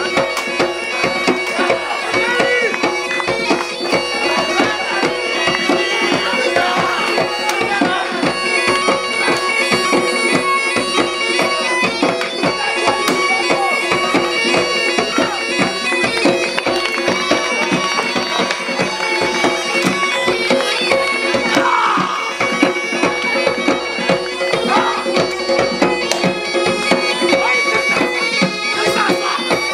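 Live folk music: a reedy wind instrument plays a melody over a steady drone, with a drum beating a fast, even rhythm throughout.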